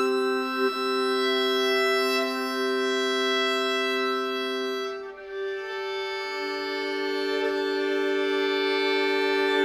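Violin and viola bowing long sustained notes together, two held pitches sounding at once. About five seconds in the notes break off briefly and a new, higher pair of held notes begins.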